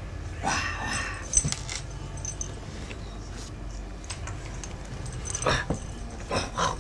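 A cat's angry yowl about half a second in, then scuffling as it grapples a plush toy, with a small metal chain jingling and more short cries near the end.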